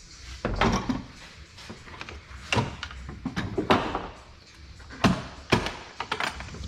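Irregular knocks and clanks of metal tools and parts being handled, a dozen or so sharp hits at uneven intervals.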